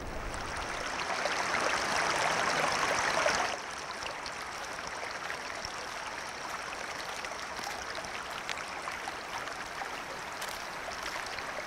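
Running water of a stream, a steady rushing hiss. It is louder for about the first three and a half seconds, then drops suddenly to a quieter, even rush.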